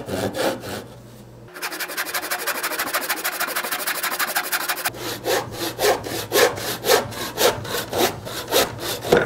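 Handsaw crosscutting a rough-sawn board, each stroke a rasping rub of the teeth through the wood, at about two strokes a second. In the middle stretch the strokes come much faster and closer together.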